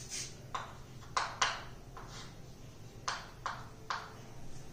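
Chalk tapping and scraping on a chalkboard while writing: about eight short, sharp strokes at uneven intervals.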